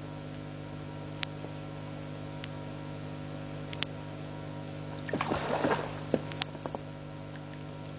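Genet rustling through dry twigs and leaf litter: a burst of crackling about five seconds in, with a few single sharp clicks before and after, over a steady low hum.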